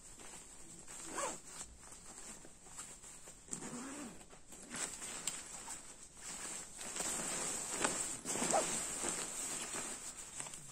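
Zipper of a goose-down mummy sleeping bag being worked by hand in several short pulls, with the nylon shell fabric rustling; the longest and loudest stretch comes in the second half.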